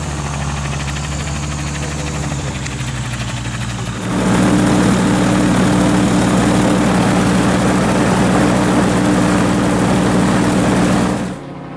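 Magni gyrocopter's engine and pusher propeller droning steadily as it flies past. About four seconds in, the sound cuts to a much louder onboard recording of the engine and propeller drone with a dense rush of air. It drops back sharply just before the end.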